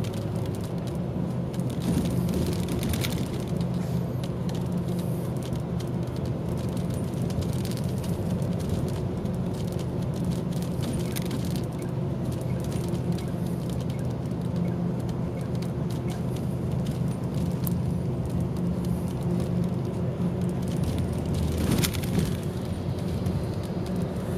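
Highway coach's diesel engine running steadily, heard from inside the cabin as a constant low hum, with a couple of brief clicks, one about three seconds in and one near the end.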